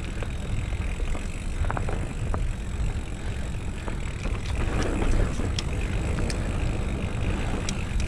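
Mountain bike rolling fast down a dirt forest trail: a steady rumble of wind on the microphone and tyres on the dirt, with scattered sharp clicks and rattles from the bike over the bumps.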